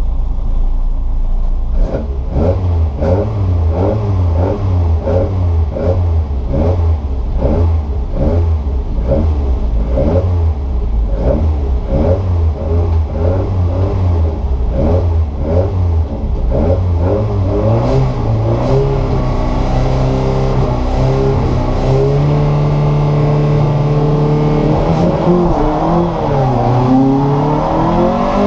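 Racing car engine revved in quick repeated blips, about two a second. About two-thirds of the way through it settles into held high revs that climb in steps, then drops and rises again near the end.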